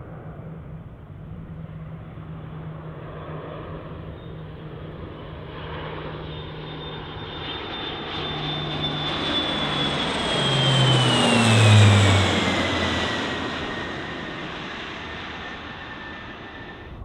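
Lockheed C-130 Hercules four-engine turboprop flying past low. Propeller hum and turbine whine build up, are loudest about twelve seconds in, then drop in pitch as the aircraft passes and moves away.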